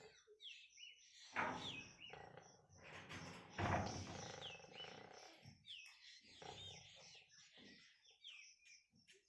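Pigs calling, with two loud harsh squeals about a second and a half and four seconds in and fainter grunting between them. Small birds chirp over it with short falling notes about once a second.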